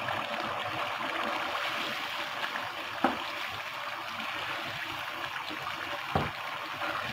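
Minced mutton simmering in its liquid in a nonstick wok, a steady bubbling hiss. A wooden spatula stirs it, knocking the pan twice, about three and six seconds in.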